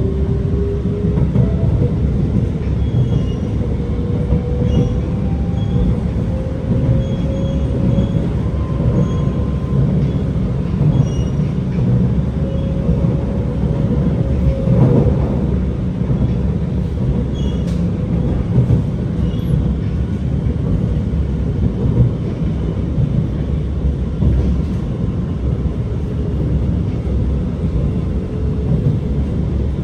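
Alstom R151 metro train running along the track: a steady rumble of wheels on rail under the faint whine of its SiC-VVVF traction motors. The whine rises in pitch near the start. There is a brief sharper sound about halfway through.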